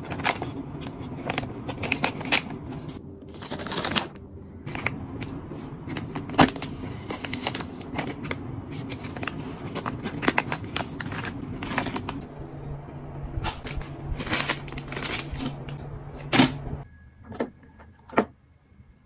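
Soft plastic wet-wipe packs crinkling and rustling as they are handled, with many sharp clicks from the plastic flip-top lids. The handling thins out near the end, leaving a few separate clicks.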